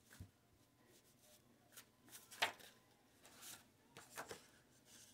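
Faint rustles and light taps of paper index cards being handled, a few short ones, the clearest about two and a half seconds in.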